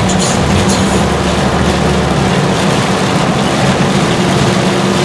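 Steady road noise heard from inside a moving car on a rain-wet road: tyre hiss and a low engine drone.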